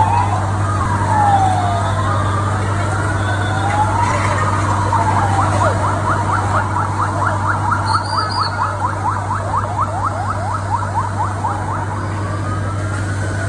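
Fire engine sirens wailing, two overlapping at first. About five seconds in, one switches to a fast yelp of about five sweeps a second, then goes back to a slow wail near the end. A steady low engine hum runs underneath.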